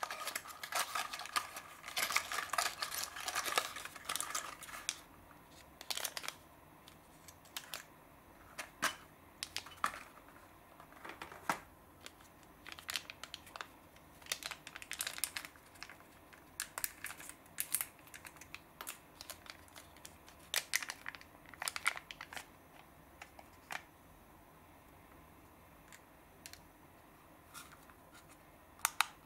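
Paper packaging handled close up: a cigarette-style cardboard tea box and a paper stick packet of powdered green tea. Dense crinkling and rustling for the first few seconds, then scattered short rustles and light clicks, growing busy again near the end as the powder is shaken from the packet into a glass.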